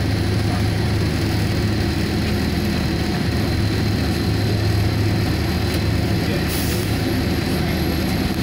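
Steady low engine rumble of a vehicle driving slowly across an airport apron, heard from inside its cabin.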